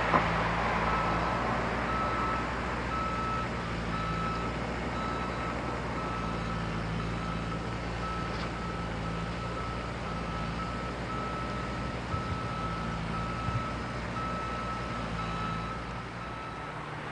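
Bobcat 430 ZHS mini excavator's diesel engine running steadily while its travel alarm beeps about once a second. The beeping stops shortly before the end. A couple of faint knocks come in the second half.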